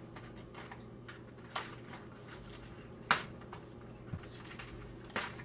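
Dry fettuccine and its packet being handled: a few sharp clicks and taps, the loudest about three seconds in.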